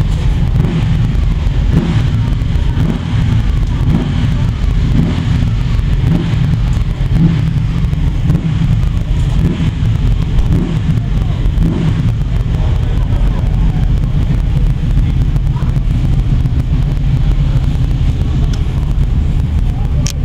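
Kawasaki ZX-10R race bike's inline-four engine idling steadily on its paddock stand through an Arrow exhaust, a loud, even low rumble with no revs.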